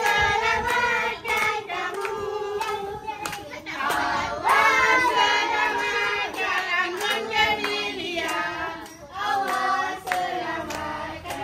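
A group of adults and children singing a birthday song together, with hands clapping along.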